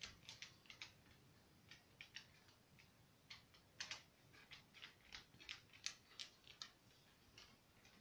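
A dog's claws clicking on a wooden floor as it walks about: short, irregular clicks, a few a second, thinning out near the end.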